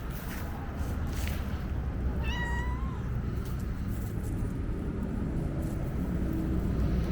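A domestic cat gives a single short meow about two seconds in, over a steady low rumble.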